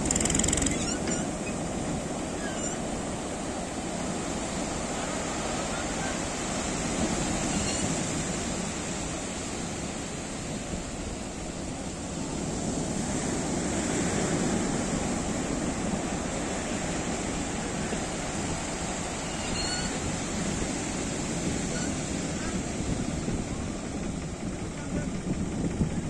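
Sea surf: small waves breaking and foam washing up over sand in a steady rush that swells a little now and then.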